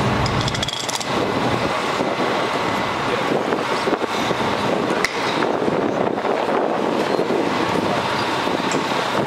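Fire engine running steadily beside the hose bed: a constant mechanical drone with a faint steady whine over it.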